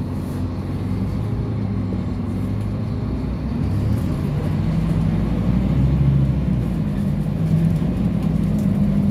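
Scania K310UB city bus engine heard from inside the cabin, a low drone whose pitch climbs as the bus gathers speed, over steady road noise.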